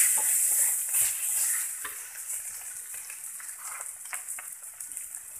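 Ground spice paste with galangal sizzling in hot oil in a steel wok, being sautéed until cooked, while a spatula scrapes and clicks against the pan. The sizzle is loudest in the first second or so, then settles lower.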